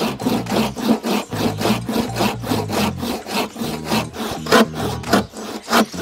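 Hand saw cutting across a thick bamboo pole, a steady back-and-forth rasp at about three strokes a second.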